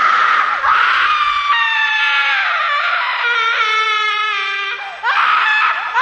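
A long, high-pitched scream held for about five seconds, its pitch stepping down and sliding lower towards the end, then breaking off and a second scream starting about five seconds in.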